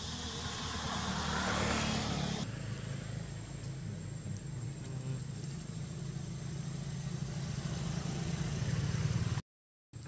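A motor vehicle passes close by on the road, swelling to its loudest about a second and a half in. After that a steady low engine-like hum runs on, growing louder, until the sound drops out for half a second near the end.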